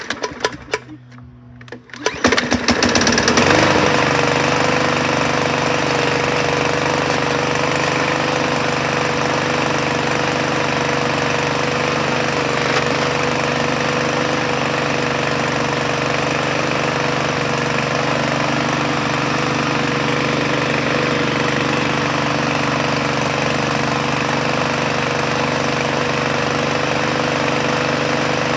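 Yardmax 21-inch mower's Rato 170 cc overhead-valve engine pull-started: a few recoil pulls, then it catches about two seconds in, revs up briefly and settles into steady running.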